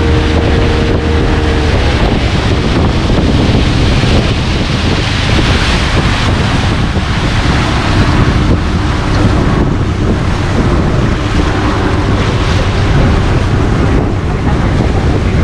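Wind buffeting the microphone and water rushing past the hull of a small motorboat under way, with the boat's motor running steadily underneath.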